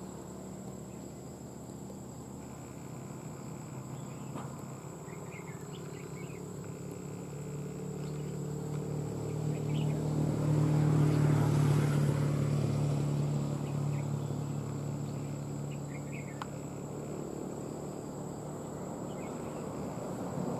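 A distant engine drones, swelling to its loudest about halfway through and then fading, over a steady high insect whine. Short bird chirps come now and then.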